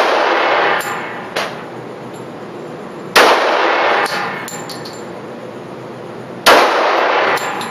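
Semi-automatic pistol shots in an indoor range booth: two loud shots about three seconds apart, each followed by a long echoing tail. A fainter bang comes about a second and a half in.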